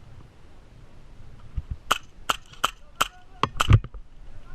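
Airsoft gun firing a string of about six single shots, each a sharp snap, roughly three a second. A heavier thump lands among the last shots.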